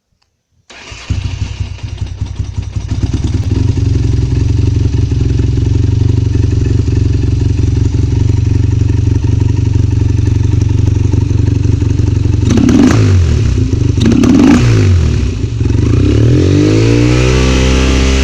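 Yamaha TDM parallel-twin motorcycle engine with Keihin FCR 39 carburettors starting about a second in, running unevenly at first and then settling to a steady idle. It is blipped twice, and near the end it is revved and held higher. The carburettor sneezes, spitting back through the intake, which is the fault at issue.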